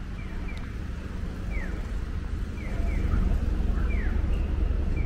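Japanese pedestrian crossing signal chirping while the walk light is green, a single falling 'piyo' answered by a double 'piyo-piyo' from the far side, alternating over and over. Road traffic runs steadily underneath and grows louder about three seconds in.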